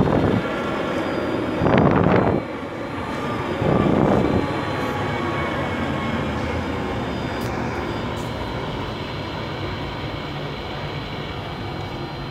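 Hydraulic pump and motors of a Wedico 1:14.5 CAT 345D RC excavator running as it digs in soil, a steady mechanical whine with three louder surges about two seconds apart in the first half.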